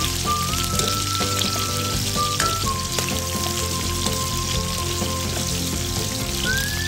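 Cubed potatoes and carrots sizzling in hot oil in a metal wok, with a metal ladle stirring them and clinking against the pan. Background music plays throughout.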